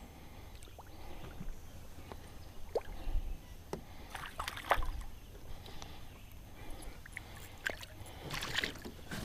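Water splashing and sloshing against a small boat, with light knocks and clicks, as a hooked largemouth bass thrashes at the surface and is landed. Two louder splashes come about four and a half seconds in and again near the end.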